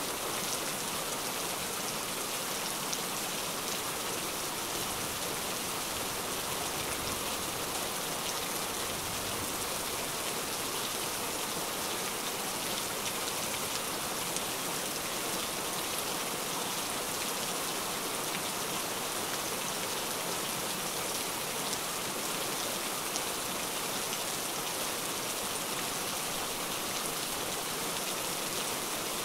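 Steady rain falling, a dense even hiss with fine ticks of individual drops.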